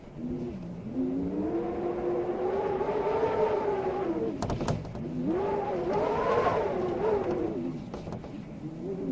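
Wind howling in gusts: a pitched moaning that swells and rises, then falls away, twice. A few quick clicks or rattles come about halfway through.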